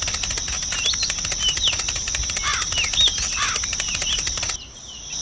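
Birds chirping over a steady high insect drone, with a fast, even run of fluttering clicks, about a dozen a second; all of it cuts off suddenly near the end.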